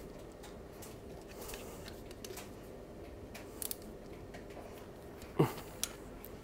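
Quiet handling sounds from work on a surface grinder's motor and belt drive: a few light clicks near the middle and one short knock about five and a half seconds in, over a faint steady background.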